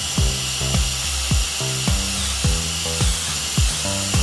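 Hilti cordless drill-driver running steadily at the go-kart's steering column, a continuous high motor whine under background music with a steady drum beat.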